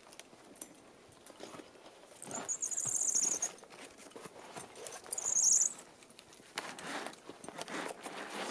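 A nylon dry bag rustling as it is hoisted up a tree on a paracord, with two short, high, squeaky trills, about two and five seconds in.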